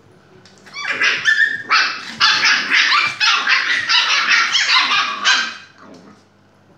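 Puppies barking and yapping in a rapid, high-pitched run while play-fighting, starting about a second in and stopping after about five seconds.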